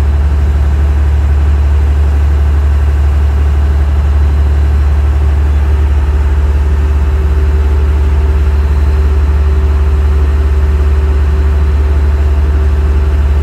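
Boat engine running steadily under way, a loud, even low drone, with water rushing past the hull.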